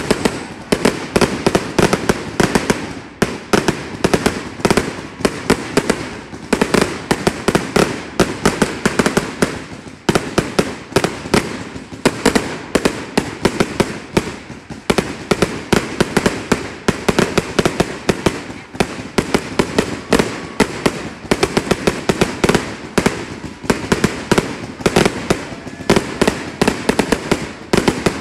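A 360-shot consumer fireworks cake firing a rapid, continuous barrage of launch thuds and bursts, several shots a second, with a few brief lulls.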